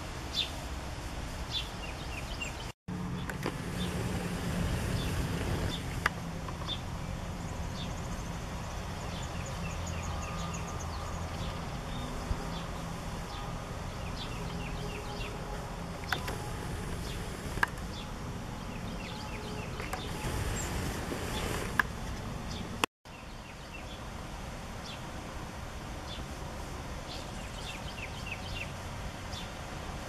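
Small birds chirping and calling over and over, with short quick trills, above a steady low rumble of wind or distant traffic, and a few sharp clicks.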